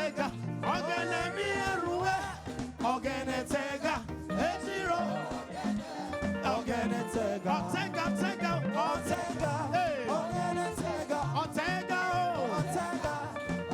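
Live band and singers performing upbeat African praise music, a dance rhythm with voices singing over it.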